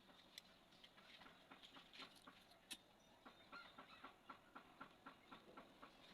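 Faint, irregular small clicks and taps, coming about three or four a second in the second half.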